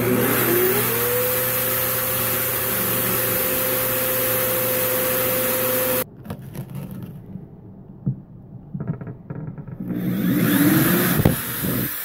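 Power drill boring a hole through PVC pipe: the motor spins up with a rising whine, runs steadily for about six seconds and stops abruptly. After a few seconds of handling it runs again, more briefly, near the end.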